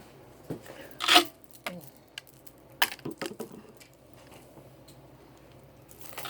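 Food packaging being handled at the table: a short crinkle about a second in, then a quick cluster of clicks and taps around three seconds in.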